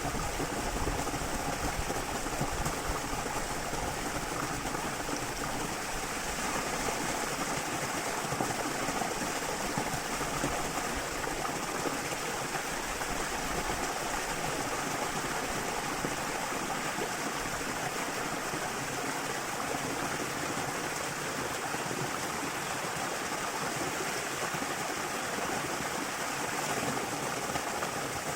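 Water of a small river waterfall flowing steadily, a constant rushing and splashing.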